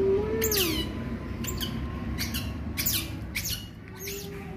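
Otter pup squeaking: about six short, shrill calls, each sliding sharply down in pitch, about half a second apart. A faint low whine sounds under the first calls.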